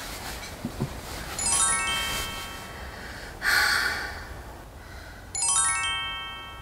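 Twinkling chime sound effect: a quick run of bell-like notes that ring on briefly, played twice about four seconds apart, with a short breathy rush of noise between them.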